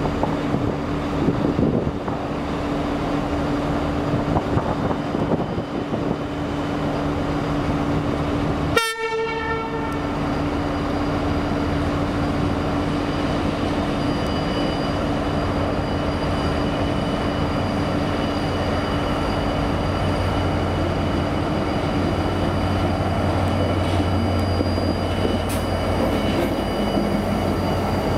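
Irish Rail 071 class diesel-electric locomotive's EMD two-stroke V12 engine running steadily as the loco shunts slowly through the yard and draws close. A brief break in the sound comes about nine seconds in.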